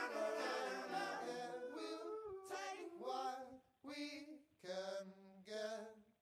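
Unaccompanied singing. At first several voices overlap in held chords, then four short sung notes follow one after another, and the singing stops abruptly near the end.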